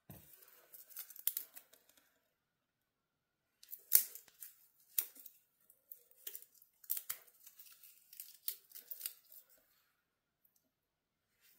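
Small kindling fire of spruce boughs and twigs just catching in a wood stove's firebox, crackling with irregular sharp snaps and pops. The snaps come in clusters, first in the opening two seconds and then again from about four seconds in.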